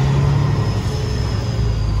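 Peterbilt semi-truck's diesel engine running with a steady low drone, heard from inside the cab as the truck rolls slowly, with a faint thin whine above it.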